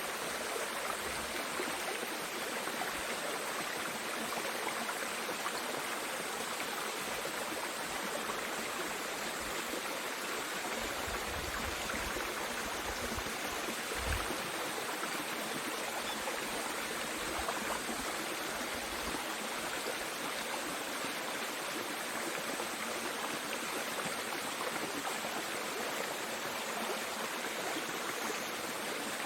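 Mountain valley stream running steadily, an even rush of water, with a soft low thump about halfway through.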